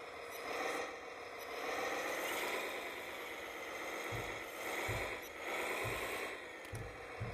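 A 1/14-scale radio-controlled CAT excavator working: its electric drive whines, the pitch wavering up and down as the boom and bucket move, while the bucket digs through sandy soil. A few dull low thumps come in the second half.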